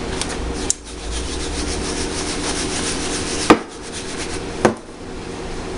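A piece of raw chicken being rubbed and turned in flour, a steady scratchy rubbing with a fast even rhythm, broken by three sharp knocks, the loudest about three and a half seconds in.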